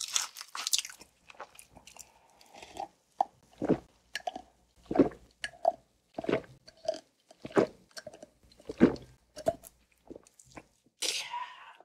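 Close-miked eating of crispy fried chicken: crunchy bites at the start, then slow, regular chewing, and another short crunch near the end.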